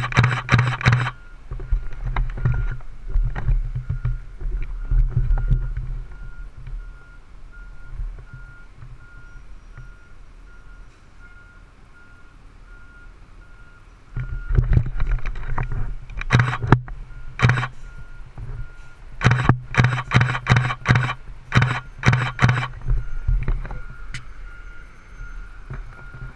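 Fire engine backing up: its reversing alarm beeps evenly, about two beeps a second, over the running engine. The engine is loud at the start, then quieter, and surges again in the second half.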